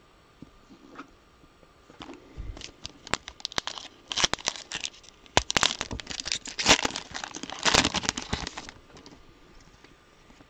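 A trading-card pack wrapper being torn open and crinkled in the hands. The crackling starts about two seconds in, is thickest in the middle, and dies away near the end.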